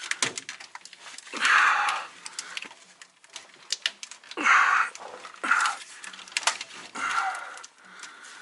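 Plastic air brake line and a push-to-connect quick-disconnect fitting being cut and handled: a run of sharp clicks and short scratchy scrapes, a few louder ones about a second and a half in and again around four and a half seconds.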